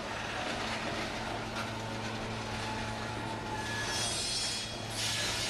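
Union Pacific mixed freight train's lumber cars and boxcars rolling slowly past, with a steady low rumble and hum. High-pitched wheel noise rises briefly about four seconds in and again near the end.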